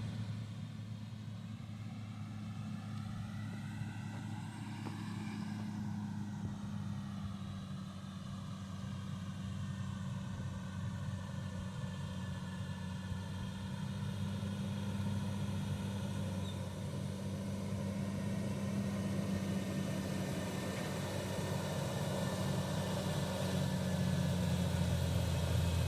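Heavy diesel earth-moving machine engine running steadily with a low drone, growing gradually louder toward the end.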